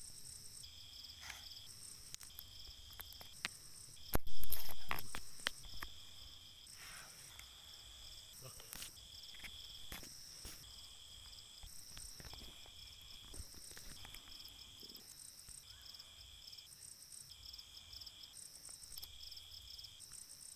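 Crickets and other night insects chirping: a high trill that comes in regular bursts about once every second and a half over a steady high buzz. About four seconds in there is a loud rustling thump that dies away over a second or so.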